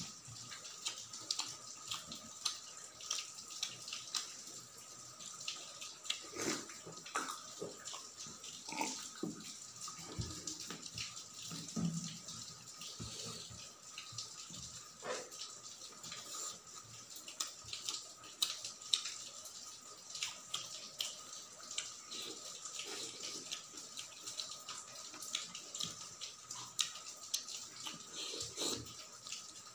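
Close-miked eating sounds: fingers squishing and mixing cooked rice with gravy on a steel plate, and wet chewing and lip-smacking, as a stream of small irregular clicks and crackles. A faint steady high tone runs underneath.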